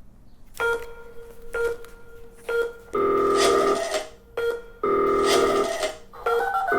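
Electronic telephone ringing tones from a music track: short beeps about once a second, then two longer rings about a second each.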